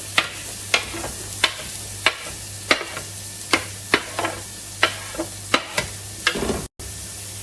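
Onion, garlic and peppers sizzling in oil in a heavy aluminium pot while a spoon stirs them, knocking against the pot about twice a second. The sound cuts out briefly near the end.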